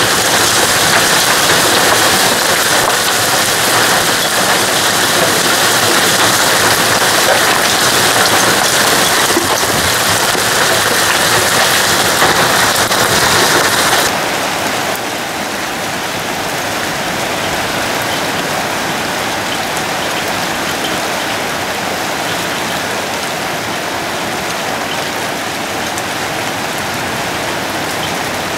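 Heavy cloudburst rain pouring down, a loud dense steady hiss. It drops abruptly to a lower, steadier level about halfway through.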